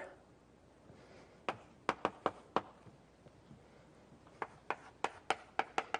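Chalk tapping against a blackboard while writing: two runs of short, sharp taps, about four a second, with a pause between them.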